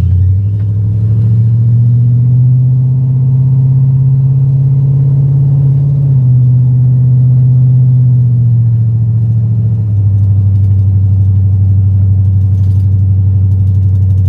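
LS V8 engine in a 1988 Ford Bronco, running through a true dual stainless exhaust while the truck is driven. The engine note rises over the first couple of seconds and then holds. It steps down slightly about six seconds in and drops back again near the ten-second mark as the driver eases off.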